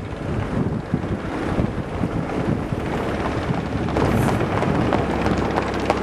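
Wind buffeting the microphone in a steady low rumble, with horses' hooves clopping on an asphalt road, the hoofbeats coming through more clearly from about four seconds in.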